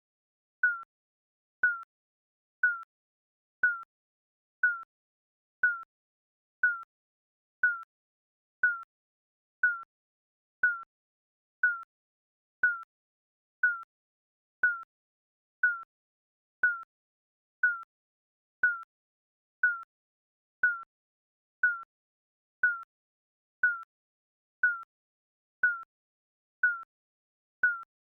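Digital countdown timer beeping once a second: short, evenly spaced electronic blips, each a brief tone dipping slightly in pitch, with silence between.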